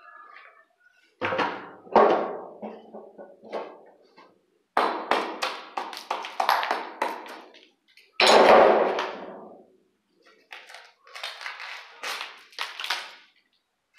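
Hand tool scraping, tapping and knocking inside a wall socket box while the stuffed paper is picked out of it: irregular bursts of clicks and scrapes, with the loudest burst about eight seconds in.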